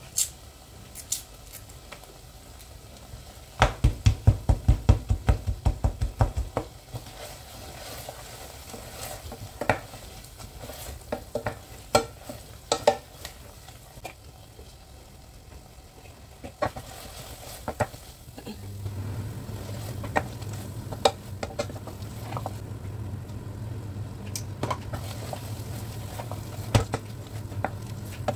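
Cooking in a pot: a spoon stirring and clinking against the pan, with scattered sharp clicks and a quick run of about a dozen loud knocks a few seconds in. About two-thirds of the way through, a steady low hum starts and carries on.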